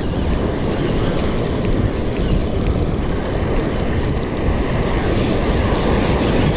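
Spinning reel being wound steadily to bring in a hooked fish, over a steady rush of surf.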